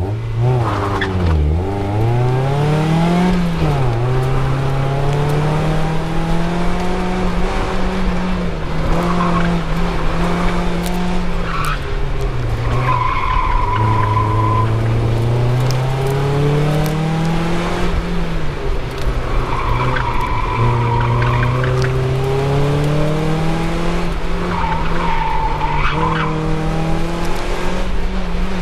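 2004 Mazda Miata's four-cylinder engine driven hard, its pitch repeatedly climbing under acceleration and dropping off, with the Dunlop Direzza ZII tyres squealing in several turns, each squeal lasting a second or two.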